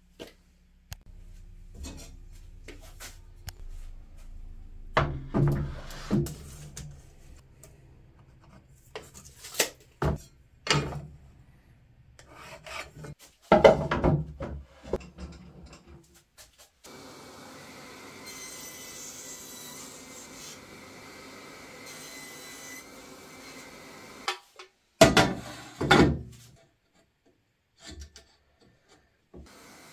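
Wooden boards handled and set down on a table saw top: scattered knocks and scraping rubs of wood, in louder clusters about a fifth of the way in, near the middle and near the end. A quieter steady noise runs through the second half, between the clusters.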